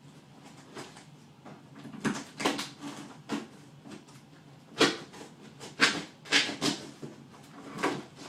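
Cardboard shipping box being opened by hand: a run of about eight short, sharp scrapes and knocks of cardboard and packing being worked loose.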